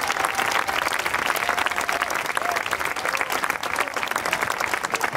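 Audience applauding: a dense, steady clatter of many hands clapping, with a few voices faintly under it.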